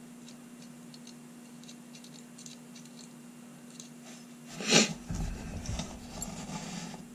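Faint metal clicks of an antique top-break revolver's frame and hammer being worked by hand to take the hammer out. A single sharper knock comes about five seconds in, followed by a second or two of handling rustle as the frame is set down on the bench mat.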